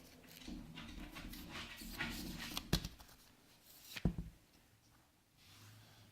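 Handling noise from unboxing a phone: rustling of packaging, with two sharp knocks about halfway through and a second later.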